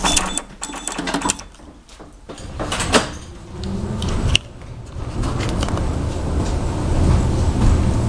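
Inside a KTM-19 tram: sharp clicks and knocks at the ticket validator at the start, then a steady low rumble from the tram that sets in about five seconds in and grows slightly louder.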